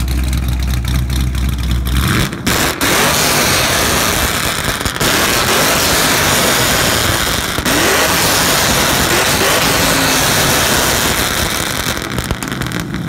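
Chevrolet Camaro SS's V8 idling, then revved hard about two seconds in and held at high revs with a few brief dips, settling back near the end.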